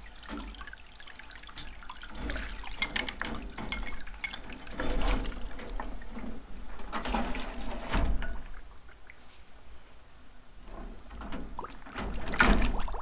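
Cleaning solution sloshing and splashing in a stainless ultrasonic cleaner tank as a carburetor rack in a wire basket is lowered in and pushed under, with a few sharp metal clinks. The loudest splash comes near the end.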